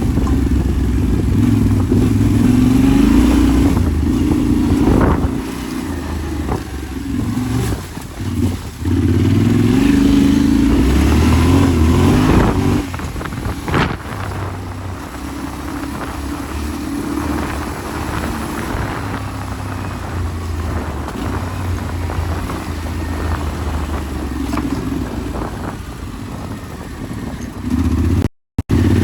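Yamaha Ténéré 700's parallel-twin engine running while being ridden off-road, the revs rising and falling. The engine is louder for the first half and eases off after about 13 seconds. The sound cuts out briefly near the end.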